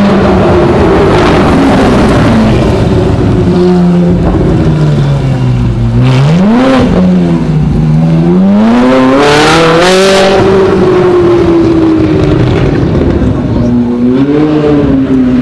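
Ferrari 458 Italia's V8 engine, fitted with what the filmer takes for a non-stock exhaust, revving and accelerating in short pulls. There is a quick rise and fall in pitch about six seconds in, a longer climb around nine to ten seconds that then eases off slowly, and another short rise and fall near the end.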